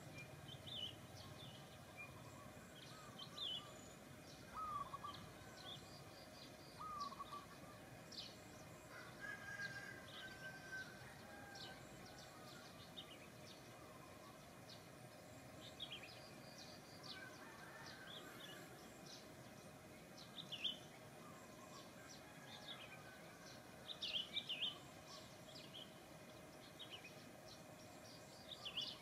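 Faint outdoor background with small birds chirping now and then in short, scattered calls.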